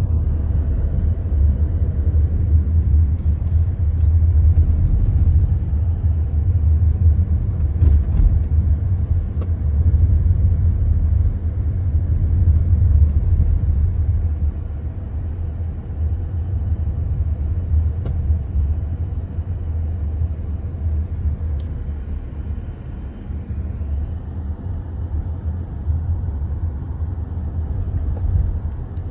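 A car driving along a road: a steady low rumble of engine and tyres, easing slightly about halfway through.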